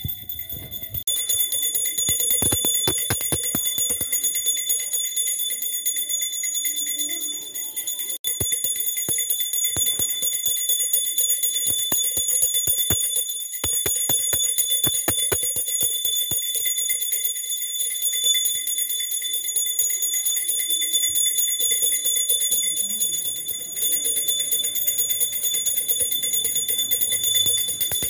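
Small brass puja hand bell rung by hand during aarti. The clapper strikes come in quick runs and the bell's high tones ring on between them.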